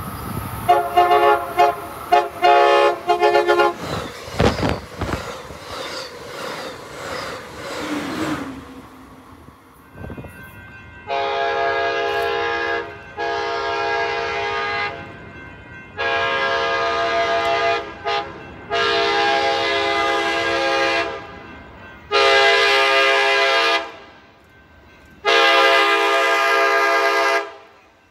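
Amtrak Pacific Surfliner cab car horns. First a train horn gives a run of quick short blasts over the clatter of a passing train. Then another cab car's horn blows a series of long blasts, about two seconds each, with one short toot among them.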